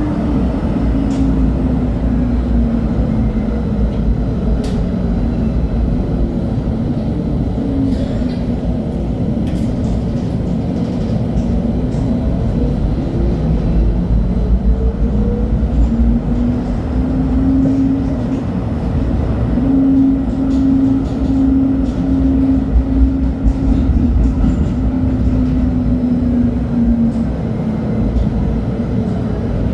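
LHB TW2000 Stadtbahn car under way, its traction motors whining over a steady rumble of wheels on rail. The whine falls in pitch over the first few seconds, rises again about halfway through, holds steady, then drops near the end.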